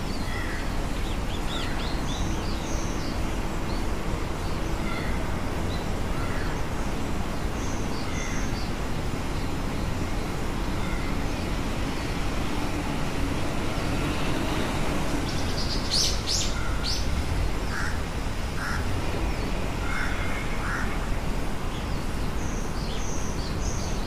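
Crow cawing, with short high chirps from small birds scattered throughout and a brief cluster of sharp high notes in the middle, over steady low background noise.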